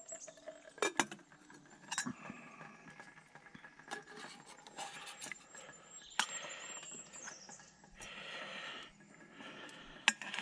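Metal tongs and the stainless steel lid of a Zebra billycan clinking against the pot as the lid is handled and refitted. There are a few separate sharp clinks, about a second in, at two seconds, around six seconds, and the loudest just before the end, with faint rustling between them.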